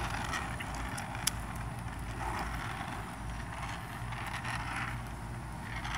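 Small wheels of a Ripstick caster board rolling on asphalt, a steady low rumble, with one sharp click a little after a second in.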